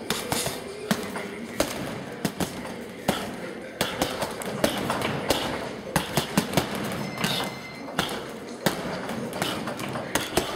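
Gloved punches landing on a double-end punching ball hung on cords: sharp smacks about once a second, with a quick flurry of four or five a little past the middle.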